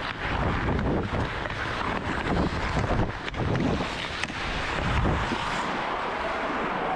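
Hockey skates scraping and carving on the ice with wind rushing over a head-mounted camera's microphone, and a few sharp clicks of the stick blade handling the puck.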